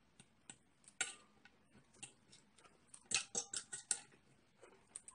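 Knife and fork clicking and scraping against a ceramic plate while cutting food: a few scattered clinks, then a quick run of them about three seconds in.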